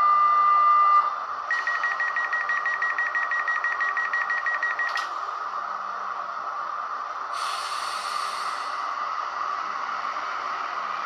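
ÖBB 4020 S-Bahn sound played by an ESU LokSound 5 decoder through a model's small loudspeaker. Over the standing train's steady hum comes a single long beep, then a run of rapid beeps lasting about three and a half seconds that ends in a click, typical of a door-closing warning. A few seconds later there is a short hiss of compressed air.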